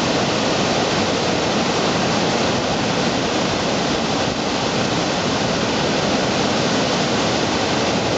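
Water pouring over a low weir into a churning white-water pool, a steady, unbroken rush of falling water.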